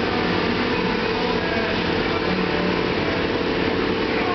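Powder-coating booth extraction fan and compressed-air powder spray gun running together: a steady hum under an even rushing hiss.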